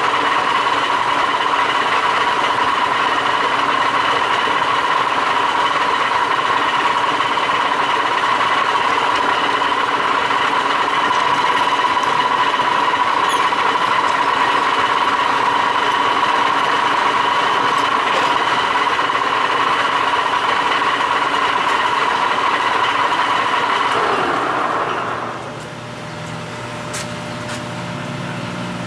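Q1313 pipe threading lathe running with a steady whine. Near the end the whine falls in pitch and dies away as the machine winds down, leaving a quieter, lower hum.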